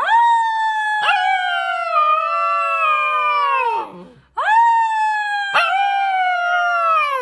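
Husky puppy howling: two long howls, each rising quickly at the start and then sliding slowly down in pitch, with a brief catch about a second into each.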